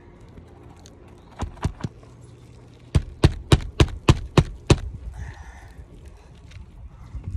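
Hammer driving roofing nails into an asphalt shingle: three light taps, then about seven quick, loud blows at roughly three or four a second.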